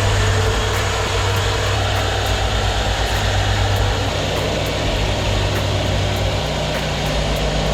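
A sawmill's engine and machinery running steadily, with a dense mechanical noise over a low hum whose pitch shifts about two-thirds of the way through.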